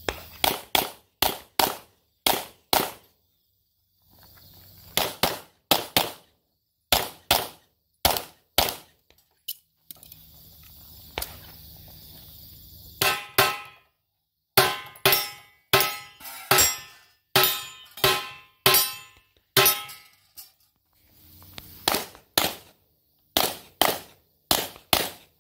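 Handgun shots fired fast in pairs and short strings, with short gaps between strings. A few of the shots are followed by a metallic ring.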